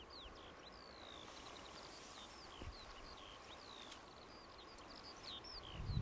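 A songbird singing a fast, unbroken run of short, varied whistled notes, many sliding downward and some upward.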